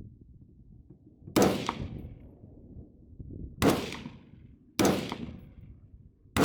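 Four gunshots, unevenly spaced, each dying away with a short echoing tail.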